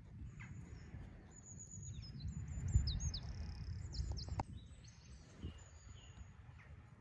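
Wild birds singing: many short, high, thin chirps and whistles, busiest in the middle, over a low steady rumble.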